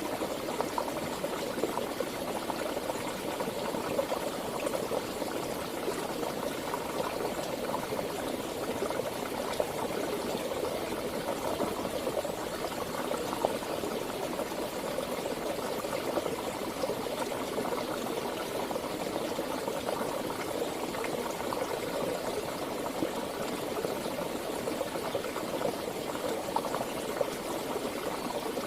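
Stream or river water flowing steadily, a continuous rush with many small splashes.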